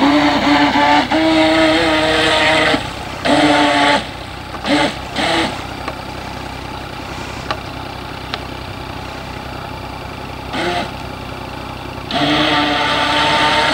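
Radio-controlled model speedboat's motor running in bursts of throttle. A steady pitched drone lasts for the first few seconds, then come short blips around five seconds in and a longer burst near the end.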